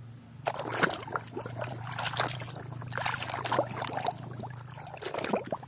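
Water splashing and sloshing in a plastic basin as a hand scrubs a muddy toy truck under the surface, in quick irregular splashes starting about half a second in.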